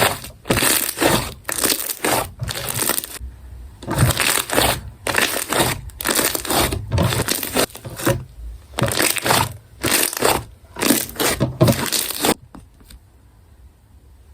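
Clear slime made with Elmer's glue being squeezed and pressed by hand, giving repeated bursts of crackling and popping as air pockets are squashed. The bursts stop about twelve seconds in.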